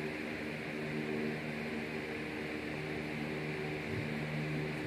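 Steady room hum with an even hiss underneath, like a running fan or other household appliance; nothing else stands out.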